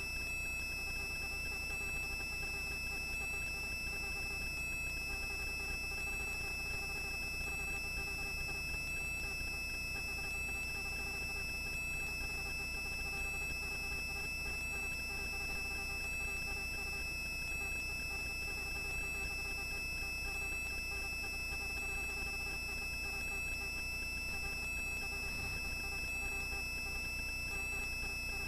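Helicopter in flight, heard faintly as a steady low hum with several constant high-pitched whines.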